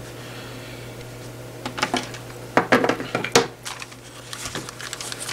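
Cheap plastic over-ear headphones being picked up and handled: a few sharp clicks and knocks, most of them between about two and three and a half seconds in, with lighter ticks after, over a steady low hum.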